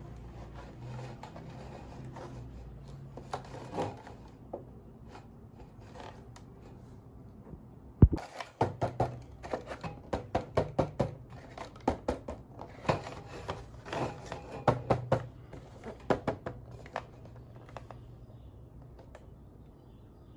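Toy packaging being handled and opened: scattered clicks and taps, a sharp knock about eight seconds in, then a quick run of clicks and rattles for several seconds.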